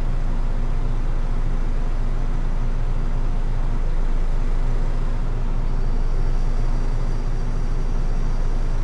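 Isuzu city bus's engine idling steadily while the bus stands still, heard from inside the cabin at the front. A faint high whine joins about halfway through.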